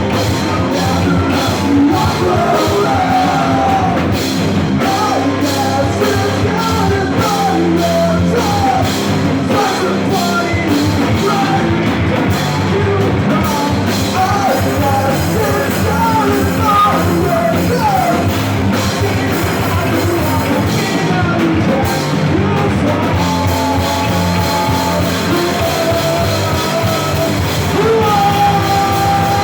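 Rock band performing live: drum kit, guitars and a singer who sings and yells over a steady beat, ending on a long held vocal note.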